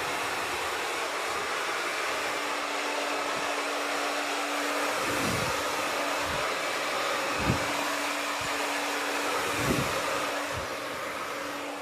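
Handheld blow dryer running steadily on hair, a rush of air over a constant motor hum, with a few brief bumps in the airflow about halfway through and near the end as it is moved.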